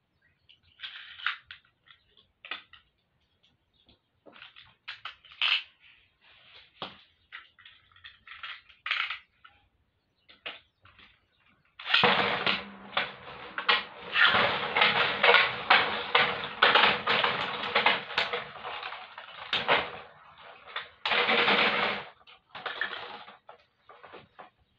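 Two Beyblade spinning tops launched into a plastic stadium, rattling and clattering as they spin and collide with each other and the stadium walls, a dense racket of about eight seconds, then a second short burst of clashing and a few last clicks as they wind down. Before the launch, scattered clicks and rattles of the tops and launchers being handled.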